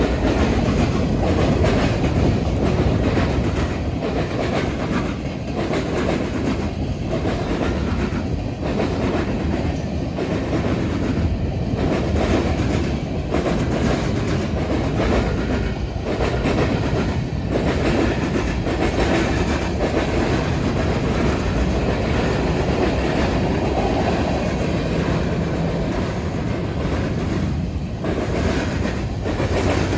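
A BNSF freight train's cars rolling past, their wheels clattering over a railroad diamond crossing in a steady run of clicks and rumble.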